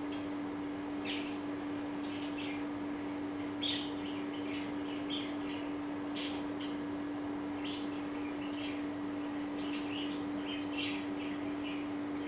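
Short high-pitched chirps from small animals, repeated irregularly, over a steady low hum.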